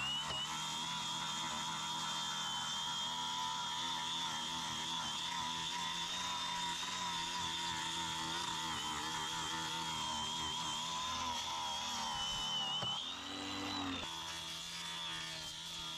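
Angle grinder fitted with a strip disc, running under load as it grinds chipped paint, with a steady motor whine that wavers slightly. Near the end the whine rises briefly in pitch and the sound gets quieter.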